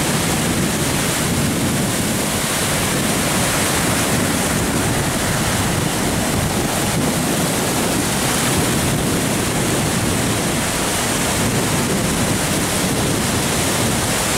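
Ocean surf: small waves breaking and washing over the shallows close by, a continuous, steady rush.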